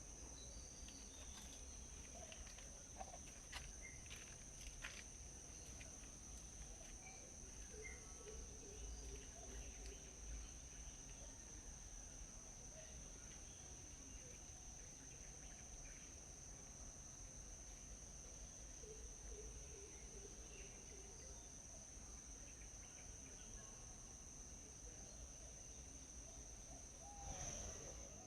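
Faint outdoor ambience dominated by a steady, unbroken high-pitched insect drone, with scattered small clicks and short bird chirps. A brief louder call comes near the end.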